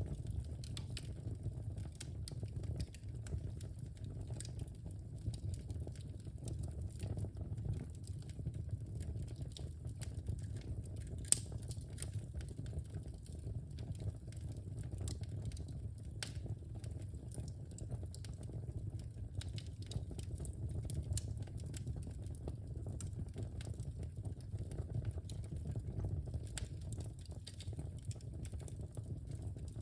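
Wood fire burning in a fireplace: a steady low rumble from the flames with scattered crackles and pops, one sharper pop about eleven seconds in.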